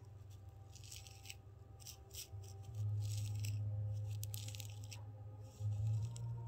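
Fine-tooth plastic comb scratching through hair against the scalp in short rasping strokes, about one a second, loosening dandruff flakes. A low steady hum runs under it from about three seconds in and is the loudest sound.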